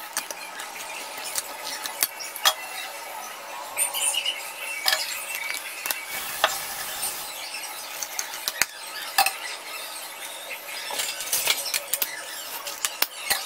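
Aluminium cake tins knocking and scraping against the countertop and a plastic tray as baked chocolate cakes are turned out of them: scattered sharp taps and clinks at irregular times.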